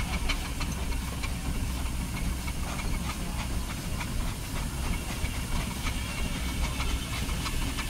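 Steam traction engine and steam roller running slowly, their steam hissing over a steady low rumble, with frequent light irregular ticks.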